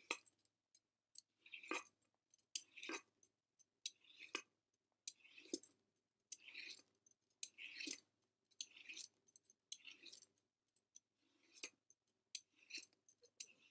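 A courgette being peeled: faint, quick scraping strokes of a blade stripping the skin, one or two a second.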